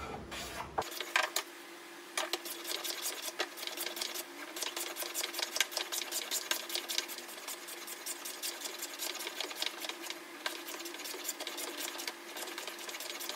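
Plane cutting a bevel along the edge of a wooden 1x3 board: a rapid, even run of short planing strokes.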